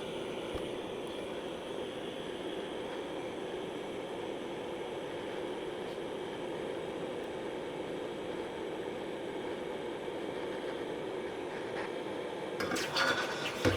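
Torch flame running steadily, heating the tip of a water-hardening silver-steel hex broach to hardening temperature. A few sharp clinks or knocks come near the end.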